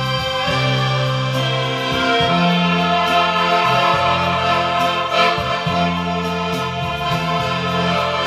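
Piano accordion playing a tune: a sustained melody over low bass notes that change about once a second.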